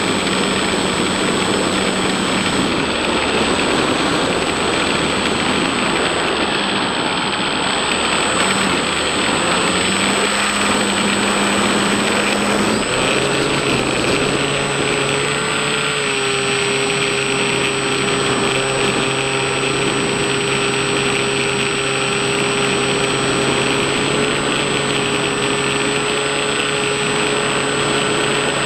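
Electric motor and propeller of a Bixler-type foam RC plane running steadily in flight, heard from the camera on board, with wind rushing past it. The motor's hum shifts to a different pitch about halfway through.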